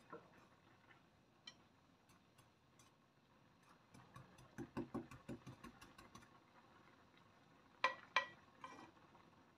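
Metal ladle stirring in a ceramic-coated saucepan of kolak, knocking lightly against the pan: a quick run of soft clicks about four seconds in, then two sharp taps near the end.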